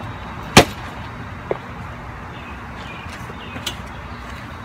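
A sharp, loud knock about half a second in, then a softer knock and a faint tick, as a person sets down a bag and sits in a metal-framed mesh patio chair. Faint bird chirps over steady outdoor background noise.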